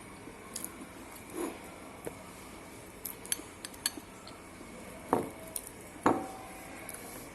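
Cutlery clinking and knocking against dishes: scattered light clicks, with two louder knocks about five and six seconds in.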